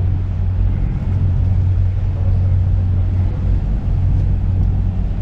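Boat's engine running steadily under way: a constant low drone with an even hiss over it.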